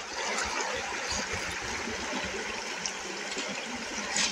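Shallow creek water trickling steadily over stones and gravel, with a short louder rustle near the end.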